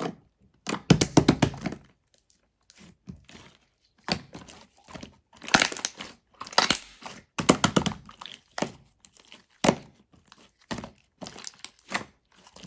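Irregular crinkling and rustling with scattered thunks and clicks, coming in uneven bursts.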